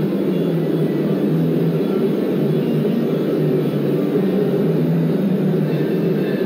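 Tattoo machine running, a steady low hum with no pauses.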